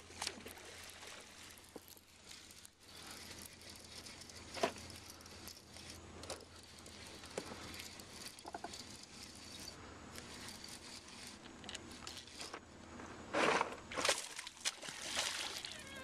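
Spro Poppin Frog topwater lure twitched across calm water, giving short pops every second or two. Near the end comes a louder burst of splashing at the surface, a bass striking the lure.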